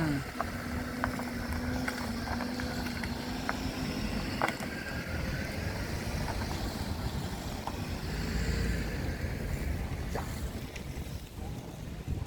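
Wind rumbling on the microphone, with a steady engine hum for the first few seconds and again briefly about eight seconds in, and scattered light clicks.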